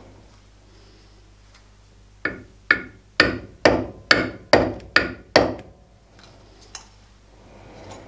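A hammer taps the kart cylinder eight times in quick succession, each tap a sharp knock with a brief metallic ring. This is nudging the cylinder's bore true to the lathe axis against a dial test indicator.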